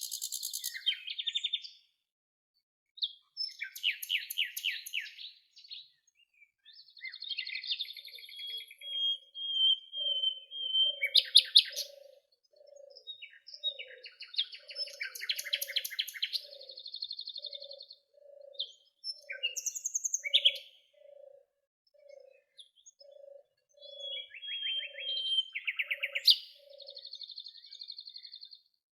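Songbirds singing in short trilled and whistled phrases with brief pauses between them. A lower, soft note repeats about once a second through the middle of the passage.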